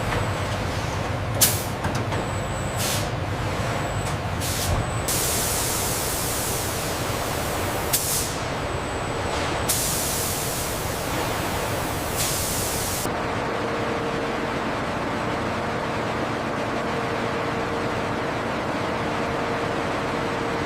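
Steady factory machinery noise with several bursts of hissing air and a few sharp clicks; a steady mid-pitched tone comes in about two-thirds of the way through.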